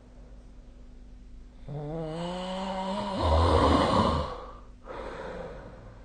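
A sleeping person snoring: a drawn-out humming tone starts about two seconds in and breaks into a loud rattling snore about a second later, followed by a softer breath near the end.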